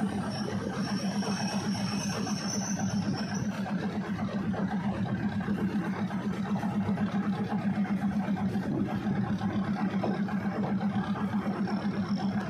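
Diesel railcar engine running steadily, a low pulsing drone heard on board the train, with a faint high whine in the first few seconds.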